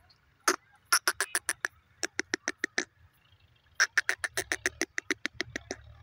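Grey francolin calling: a single sharp note, then three fast runs of short, harsh, clipped notes at about eight to ten a second, the last run the longest.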